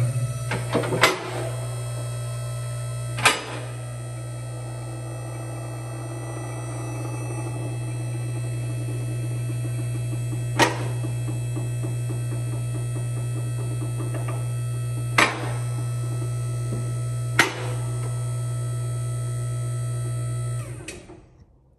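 Electric hydraulic pump motor of a two-platform scissor car lift running steadily as the lift raises, with five sharp clacks from the lift along the way. The motor cuts off about a second before the end.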